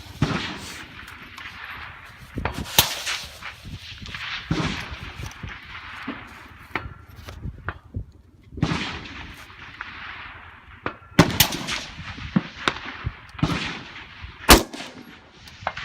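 Centrefire rifle shots: several sharp cracks a few seconds apart, the loudest three about 3, 11 and 14.5 seconds in.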